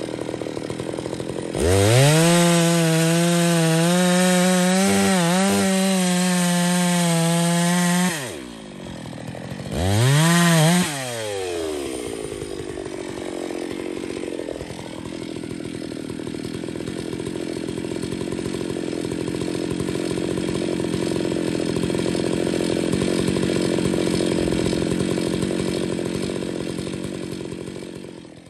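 Stihl MS660 two-stroke chainsaw revved up to high speed and held there for about six seconds, then dropping back. A second short rev follows, then it settles into a lower, steady running that slowly swells and fades out near the end.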